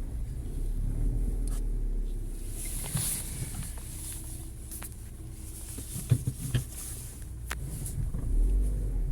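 Lada Vesta SW Cross engine running at low speed while the car creeps and slips in snow onto an inspection pit, with a few sharp clicks and knocks in the second half, the loudest about six seconds in.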